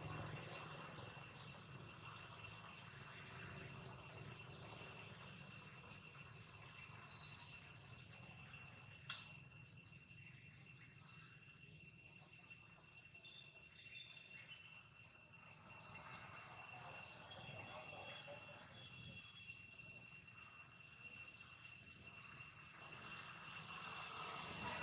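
Insects making a steady high drone, with short trains of rapid chirping that start and stop every second or two.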